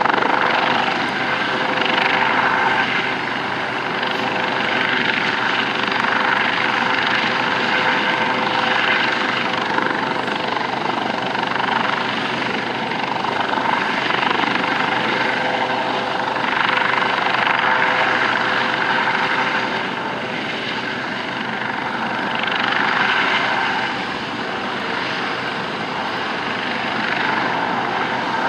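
US Coast Guard MH-65 Dolphin helicopter hovering low, its twin turboshaft engines and ducted-fan tail rotor giving a steady whine over the rotor noise. The rushing sound swells and fades every few seconds.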